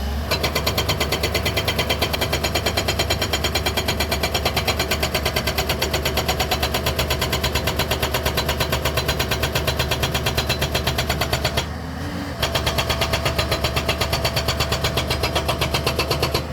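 Hydraulic rock breaker on a JCB 215 excavator hammering rock in a rapid, steady stream of blows, over the excavator's diesel engine running underneath. The hammering stops briefly about twelve seconds in, then starts again.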